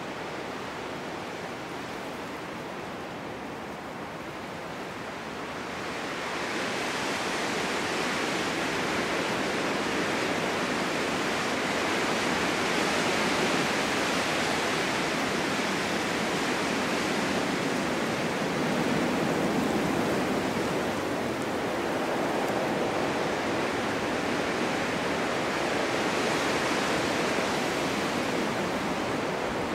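Snowstorm wind blowing as a steady rushing noise that swells into a stronger gust about six seconds in and keeps surging.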